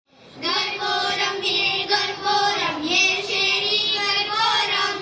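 A group of children singing a song together into microphones, over backing music. The sound fades up from silence in the first half second.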